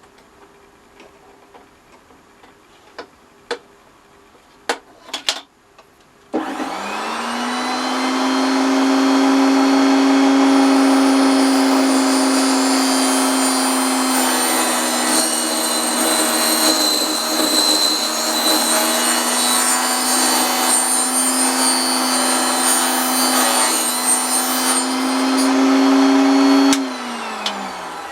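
A few clicks, then a Proxxon KS 230 mini table saw is switched on. Its motor spins up and runs with a steady hum while the blade grinds grooves into an oak dowel turned against it. Near the end the saw is switched off and the blade spins down with falling pitch.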